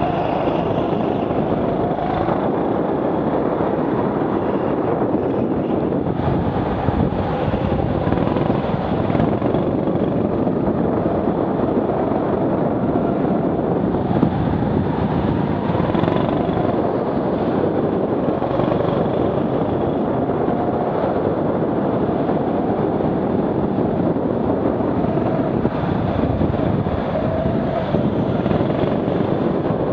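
Rental go-kart driven at speed around a track: a steady, loud drone of the kart's motor, its pitch wavering up and down through the corners.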